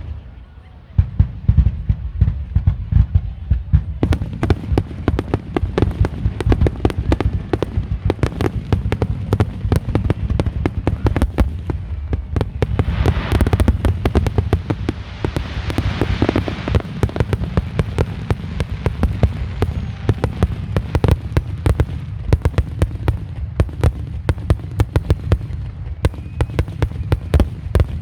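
Fireworks display: a dense barrage of shell bursts, several bangs a second, starting about a second in, with a stretch of hissing crackle around the middle.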